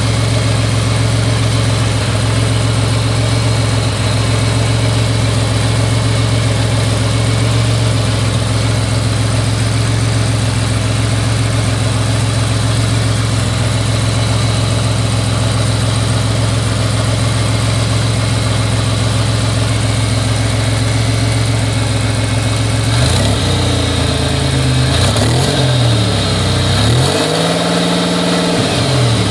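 Buick Regal GSE engine, slightly warm, idling steadily, then revved up and back down twice near the end. The owner says it is misfiring a little bit with no check engine light, and suspects the crank sensor.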